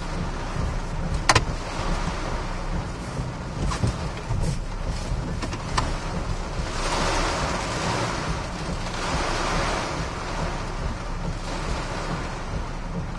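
Hurricane-force wind and heavy rain heard from inside a vehicle: a steady low rumble of wind buffeting, with a hiss of rain that swells with a gust about seven seconds in and eases after about ten seconds. A few sharp knocks break through, the loudest about a second in.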